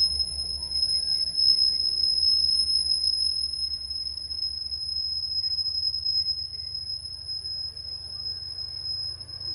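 Passenger and baggage cars of a train rolling past, with a low rhythmic rumble from the wheels on the rails that slowly fades. A steady high-pitched tone rings over it.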